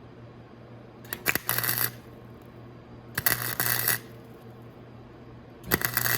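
Welding arc crackling in three short tack-weld bursts of under a second each, on a thin steel motorcycle muffler, worked in short bursts because a longer weld melts through the metal. A steady low hum runs underneath.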